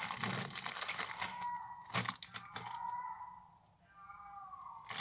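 Plastic wrapping crinkling and rustling as it is handled, for the first two or three seconds. Then a cat's drawn-out yowl, falling in pitch, heard faintly: a tomcat caterwauling in search of a mate.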